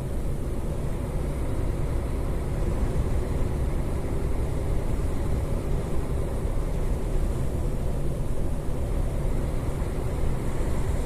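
Steady engine and road rumble of a semi-truck cruising, heard inside the cab.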